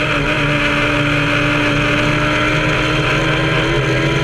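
Kawasaki ZX-10R inline-four motorcycle engine in an MK Indy kit car, pulling hard at high, steady revs with its pitch creeping slowly upward as the car builds speed, heard from the open-topped cockpit.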